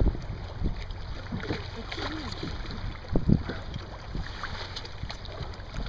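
Water slapping and splashing against the side of a small boat, with wind buffeting the microphone. A few dull knocks come through, the loudest at the start and about three seconds in.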